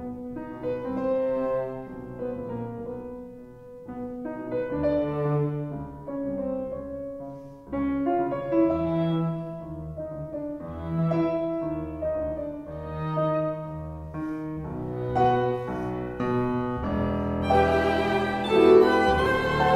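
Background instrumental music of held melodic notes, growing fuller and brighter over the last couple of seconds.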